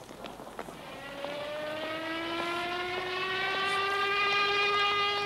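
A siren winding up: a pitched wail starts about a second in, rises for about two seconds, then holds steady and grows louder. Scattered clicks and crackle from an old film soundtrack run underneath.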